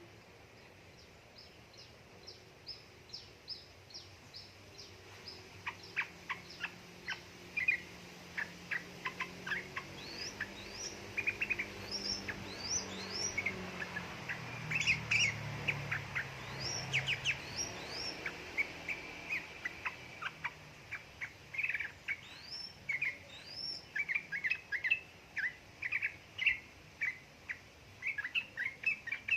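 Sooty-headed bulbul (trucuk) chattering in quick, rapid runs of short notes, some sweeping upward, sparse at first and denser from about six seconds in. A faint low rumble sits under the middle part.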